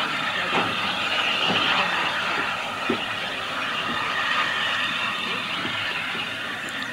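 Steam tank locomotive working a passenger train: a steady rushing sound with a few faint thumps in the first few seconds.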